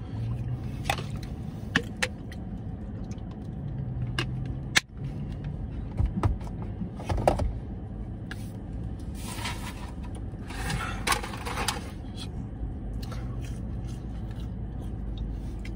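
Eating fries in a parked car: chewing with the scrape and rustle of a paper food container and scattered small clicks, over a steady low hum in the car cabin. Two longer, louder stretches of noise come a little past the middle.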